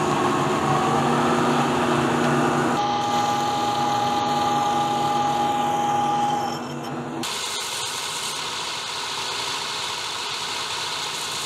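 Vertical milling machine starting up with a rising motor whine, then running steadily as a hole saw in its spindle notches the end of a tube. About seven seconds in, the sound changes to a steady machine noise with no clear pitch.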